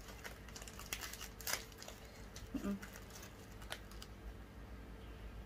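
Plastic wrapper of a packet of Good Day chocolate chip cookies crinkling in a few sharp, scattered crackles as cookies are taken out of it. A brief short hum from a person comes partway through.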